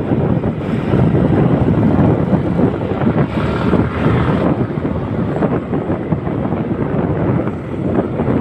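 Wind buffeting the microphone during a ride, a steady loud rumble with vehicle noise underneath; a brief hissier gust about three to four and a half seconds in.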